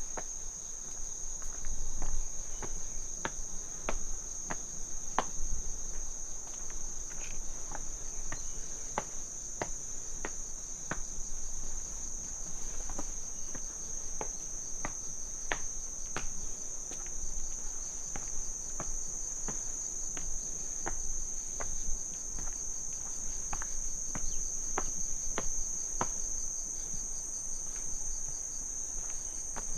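Autumn insects singing in a steady, high, unbroken chorus, with a second faint pulsing insect call joining about halfway in. Over it come footsteps on the path, sharp short steps about once a second.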